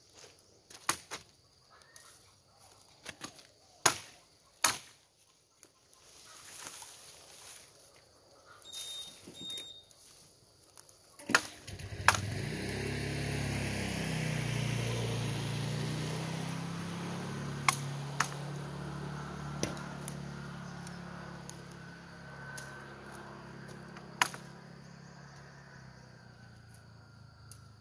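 Sharp, separate chopping strikes on bamboo stems, most of them in the first twelve seconds. From about twelve seconds in, a low drone comes up and slowly fades, with a few more strikes over it.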